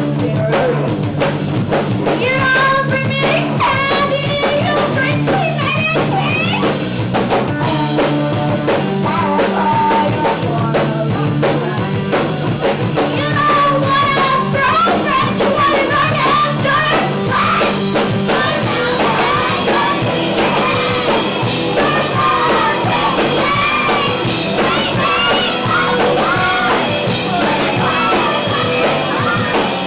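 Live pop-rock band playing a song: a woman's lead vocals over electric guitar, bass guitar and a drum kit, loud and continuous.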